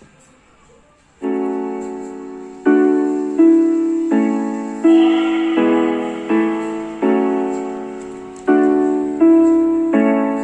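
Piano music played through a small 6 W portable Bluetooth speaker, a Robot Brio RB420. After about a second of quiet, chords start, each struck and fading away, one roughly every 0.7 s.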